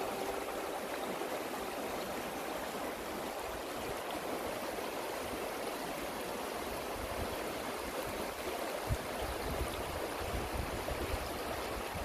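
Shallow, rocky mountain river flowing steadily over stones. Low rumbling comes and goes in the last few seconds.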